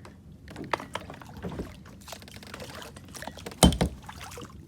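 Water sloshing and splashing around a kayak, with small knocks and one loud hollow thump about three and a half seconds in.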